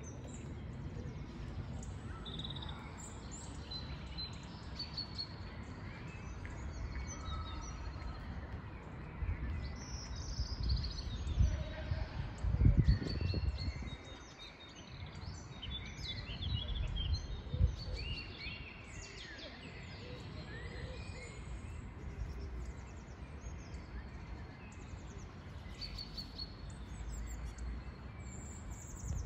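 Several songbirds singing and calling, many short chirps and phrases overlapping, over a steady low background rumble. A few louder low rumbling bursts come near the middle.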